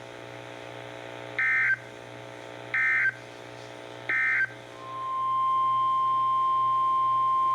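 Emergency Alert System data bursts: three short, identical screeching bursts of SAME digital code, evenly spaced, marking the end of the warning message. Just before five seconds in, a steady single-pitch NOAA Weather Radio warning alarm tone fades up and holds, announcing the next alert.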